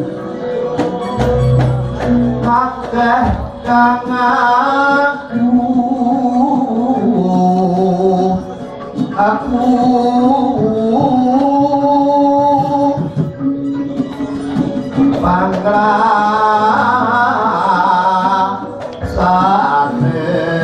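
Javanese palaran singing accompanied by a gamelan: a sung melody with ornamented, sliding phrases over the gamelan's struck bronze metallophones and a low drum. The singing breaks briefly about a third of the way in and again near the end.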